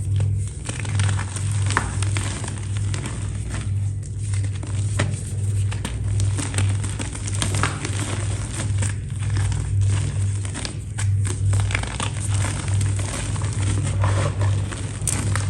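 A brittle, crispy material crumbling and snapping as it is crushed, giving dense irregular crackles and snaps, over a steady low hum.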